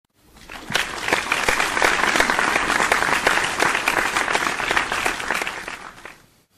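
Audience applause: many people clapping, fading in over the first second, holding steady, then dying away near the end.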